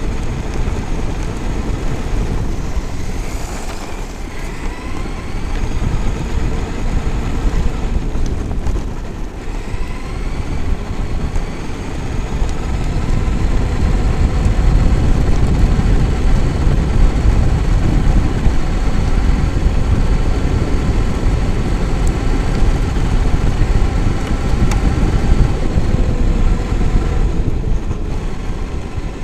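Traxxas X-Maxx electric RC monster truck running flat out, its brushless motor whining and rising and falling in pitch with speed over heavy low rumble and wind noise on an onboard camera. It gets louder from about halfway.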